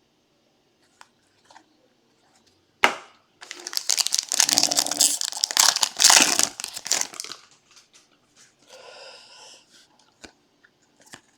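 A foil trading-card pack wrapper being torn open and crinkled, a few seconds of loud crackling after a sharp click, with a fainter rustle later on.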